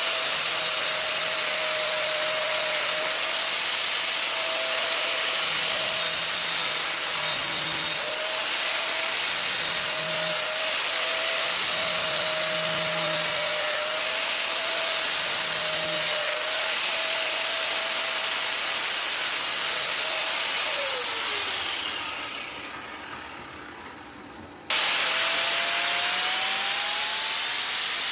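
An electric power tool shaping wood, running steadily with the noise of the wood being worn away. About three-quarters of the way through it is switched off and winds down, falling in pitch. After an abrupt cut it starts again, rising in pitch as it spins up.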